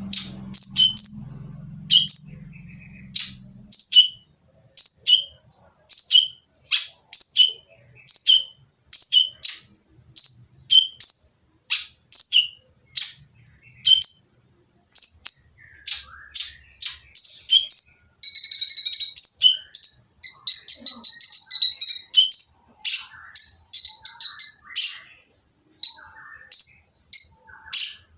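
Sunbird (the 'kolibri ninja') calling loudly and harshly: a string of short, sharp, high chirps about two a second, with a rasping, buzzy stretch about 18 seconds in followed by quick repeated notes.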